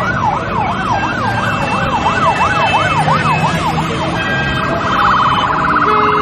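Vehicle sirens wailing in a fast yelp, the pitch rising and falling about two and a half times a second. Near the end the yelp gives way to a rapid warble with steady horn-like tones.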